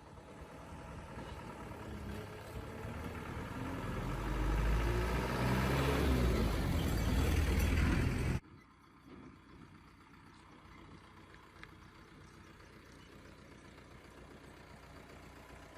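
A motor vehicle's engine grows louder and rises in pitch over several seconds, then cuts off abruptly. A quieter, steady engine hum follows.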